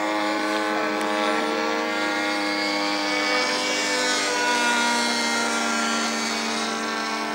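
Radio-controlled ASM Cessna model airplane's motor and propeller droning steadily in flight, the pitch dropping about four seconds in.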